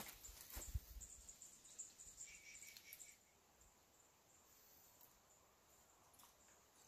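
Near silence outdoors: a few faint clicks and a low knock in the first three seconds, with a brief high note about two seconds in, then only a quiet hiss.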